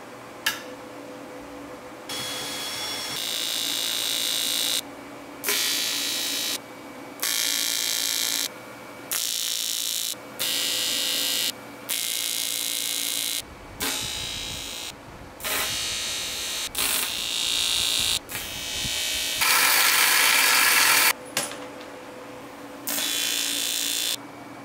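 TIG welder arc on aluminium, welding a throttle-body adapter flange onto an aluminium intake. A harsh, crackling buzz, typical of AC TIG on aluminium, comes in about fourteen short welds of one to two seconds each. Each one starts and stops abruptly, and the loudest run is near the end.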